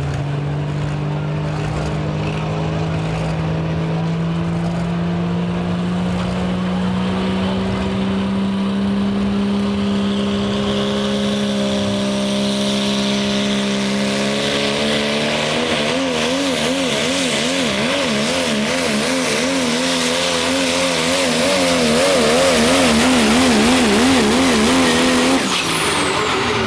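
Diesel pulling truck's engine at full effort against the pulling sled. The pitch climbs steadily for about fifteen seconds, then wavers rapidly up and down as it grows louder, and drops off suddenly near the end as the throttle is released.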